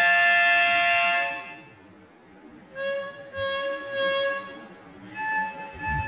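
Plastic toy trumpet blown in held notes. The first note, at the start, is the loudest and lasts about a second and a half. After a pause come a few shorter notes at other pitches, with another held note near the end.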